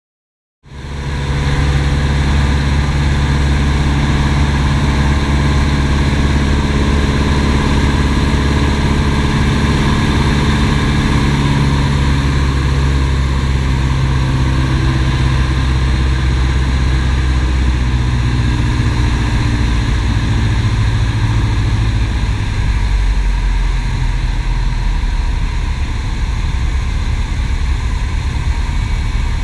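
Piper PA-18 Super Cub's piston engine and propeller running steadily in flight, heard from inside the cockpit with wind noise. It cuts in suddenly just under a second in, and its low note drops a little about three-quarters of the way through.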